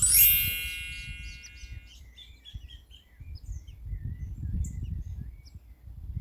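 A sudden ringing strike of many high tones, like a struck bell or chime, that fades away over about two seconds. Scattered short high bird chirps follow, over a low rumble of wind or handling on the microphone.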